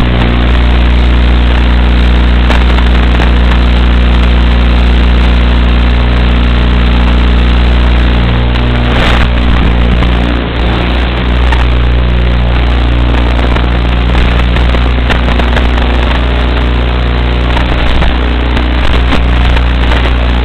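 Loud steady hum with a dense hiss over it, unchanging apart from a brief dip about ten seconds in.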